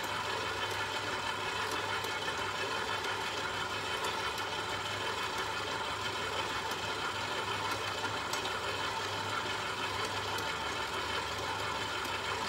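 Stand mixer motor running steadily at one speed, with a few faint light clicks.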